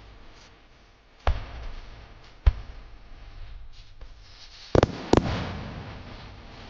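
Aerial firework shells bursting in a starmine barrage: single sharp bangs about one and two and a half seconds in, then the loudest, a close pair of bangs near five seconds, each trailing off in echo.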